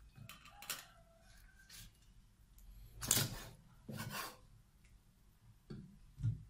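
A cleaver blade scraping and knocking on a round wooden chopping block while cutting up a raw chicken wing: a few short scrapes, the loudest two about three and four seconds in, and a dull knock near the end.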